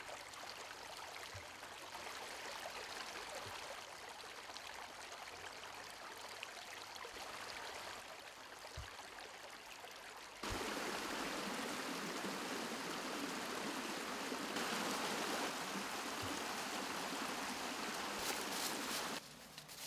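Canyon stream flowing steadily, becoming clearly louder about ten seconds in.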